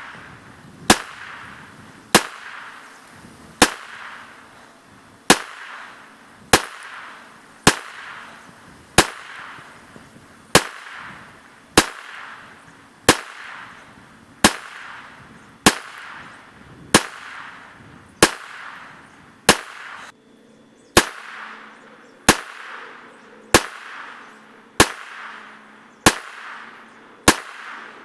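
Taurus TX22 .22LR semi-automatic pistol firing Aguila Super Extra round-nose ammunition, one shot at a time at a steady pace of roughly one every 1.2 to 1.3 seconds, about twenty shots. Each sharp crack trails off in a short echo.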